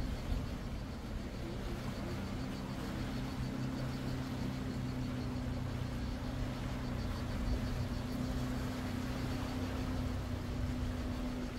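Steady low mechanical hum with a few held low tones, like a running engine or motor, unchanging throughout.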